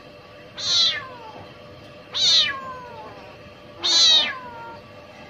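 Angry grey tabby kitten meowing loudly three times, each call about half a second long and falling in pitch at the end.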